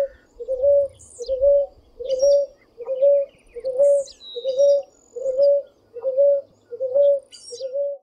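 Ruddy ground dove cooing: a steady series of short, low coos, about one and a half a second, each lifting slightly at its start. Faint high chirps of other small birds sound in the background.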